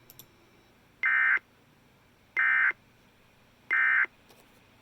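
Emergency Alert System end-of-message code: three identical short bursts of screechy digital data tones, evenly spaced about a second apart. This signals the end of the alert.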